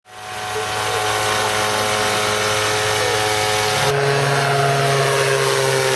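Engine of a homemade ultralight aircraft running steadily in flight, with a change in its note about four seconds in.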